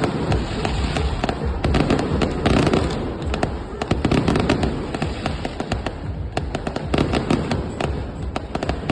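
Aerial fireworks going off in a dense, continuous barrage: many sharp bangs and crackling pops each second over a rumbling wash of earlier bursts.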